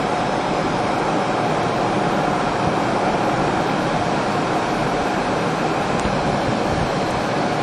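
Steady cockpit noise inside a two-seat MiG-29UB in a fast descent at about Mach 0.8: an even, constant rush of airflow and jet engines with a faint steady hum, unchanging throughout.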